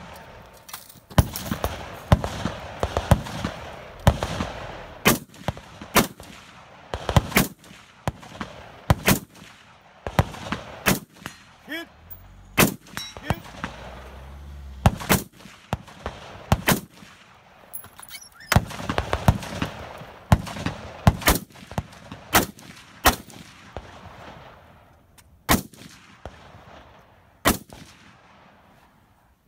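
Scoped AR-style semi-automatic rifle fired in a long string of single shots, mostly one every second or two, with short pauses and fewer shots near the end.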